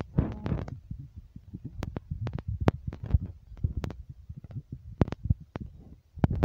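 Handling noise from a phone being moved about: low rumbling of the microphone being rubbed, with many irregular clicks and knocks.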